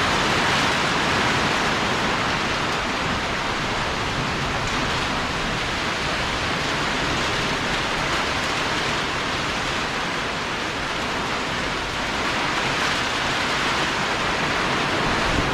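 Heavy rain pouring in a dense, steady hiss.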